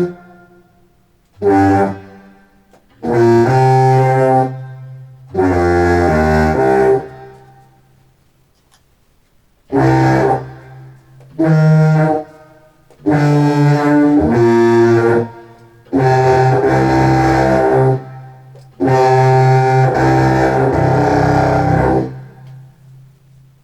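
Contrabass clarinet played through an effects pedalboard into a Walrus R1 reverb on a short 'air' shimmer preset, heard through studio speakers: about eight short phrases of reedy notes, each breaking off into a brief reverb tail. A low steady tone hangs on under and between the later phrases.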